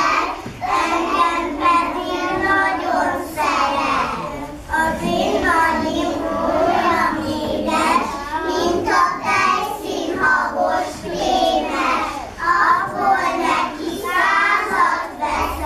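A group of young children singing together without instruments.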